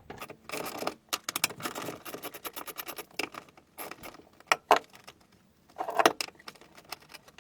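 Rattling, clicking and scraping of hard parts being handled by hand during work on a car's dashboard: a busy run of small clatters, then a few separate sharp clicks.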